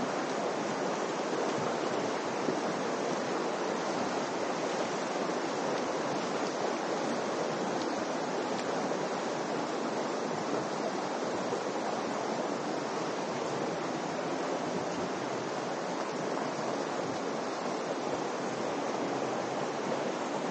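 Steady rushing of the Virgin River's water flowing through the canyon.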